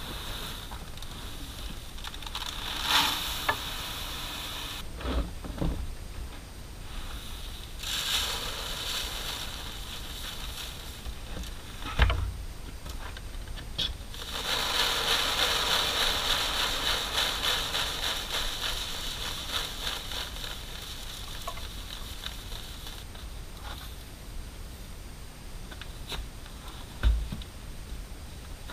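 Threshed hard red winter wheat being poured and shaken through a plastic crate screen into a plastic tub: spells of rustling and hissing of grain and chaff on plastic, the longest and loudest lasting several seconds about halfway through. A few sharp knocks of the plastic crate and tub come in between.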